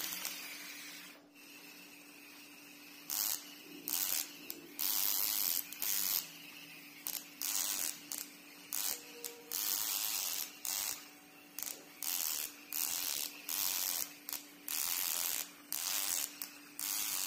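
Small electric motors of toy tractors whirring steadily. From about three seconds in, repeated short bursts of hissing and splashing come as the wheels spin and churn in wet mud.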